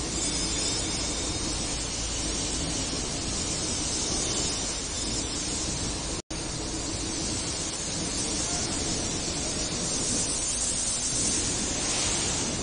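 Steady background hiss with a faint low hum, which cuts out completely for a split second about six seconds in.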